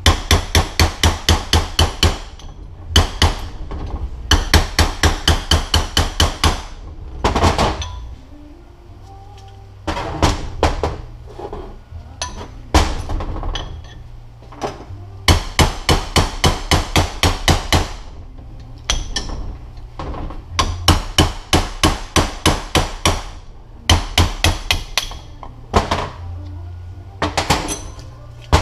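Hammer striking a punch to drive an old seal out of a MazdaSpeed6 transfer case. The strikes come in quick runs of about five a second, with short pauses between runs.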